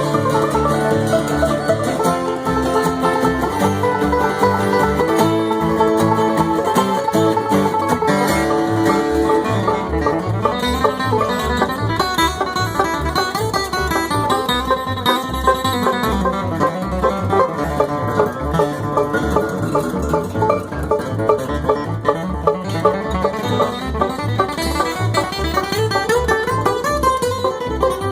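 Bluegrass band playing an instrumental passage: banjo picking over guitar, with a steady low beat underneath.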